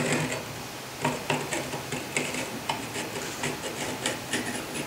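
Light, irregular metal clicks and taps, a few a second, as a small metal marking gauge is handled and shifted against a metal bar on a steel bench, with a sharper click near the end.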